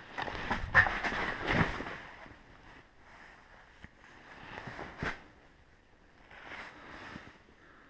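Clothing rustling right against the microphone as a person moves about, with a few sharp knocks, the loudest about a second in and another about five seconds in.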